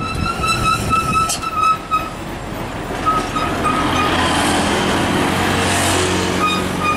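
Hino 500 truck towing a trailer driving past, its diesel engine running with a steady low hum that rises in pitch in the second half, along with road and tyre noise swelling as it passes. A high, repeated chirping tone sounds through the first two seconds and briefly again near the end.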